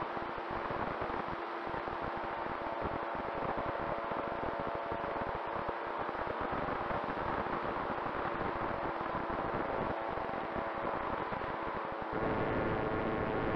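E-flite Air Tractor RC plane's electric motor and propeller heard from an onboard camera in flight: a steady whine over rushing wind that buffets the microphone, getting louder near the end.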